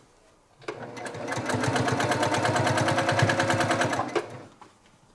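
Electric sewing machine stitching through layered quilted fabric. It starts under a second in, builds to a steady speed with a motor whine under rapid, even needle strokes, and stops a little after four seconds in.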